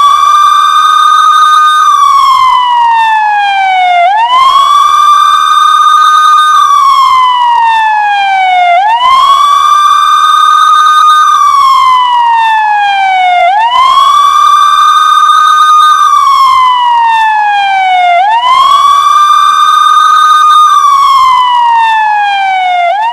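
Indian police siren wailing loudly: each cycle rises quickly in pitch, holds at the top for about two seconds, then slowly falls, repeating about every four and a half seconds.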